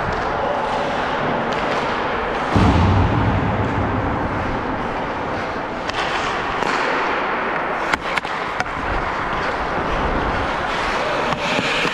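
Ice hockey skate blades scraping and carving the ice during play. There is a heavy thump about two and a half seconds in and a few sharp clacks around eight seconds in.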